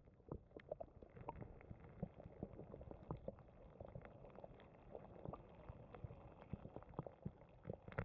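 Faint underwater stream sound heard through a submerged camera: muffled bubbling with many small, irregular clicks and pops.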